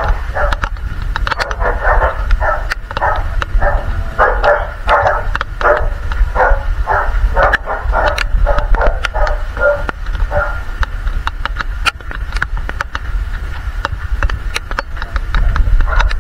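A dog barking over and over, about two barks a second, stopping about ten seconds in. A steady low rumble and scattered sharp clicks run underneath.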